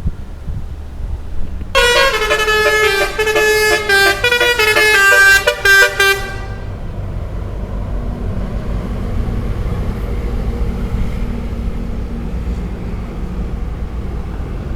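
Telolet bus horn, a multi-trumpet musical air horn, playing a quick stepping melody of short notes for about five seconds, starting near two seconds in. After it stops, a steady low rumble.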